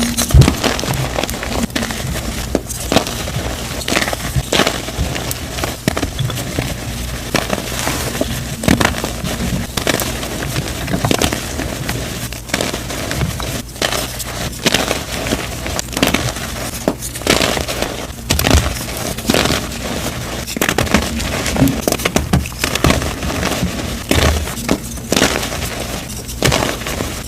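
Blocks of dyed gym chalk being crushed and crumbled, with an irregular run of crisp crunches and snaps.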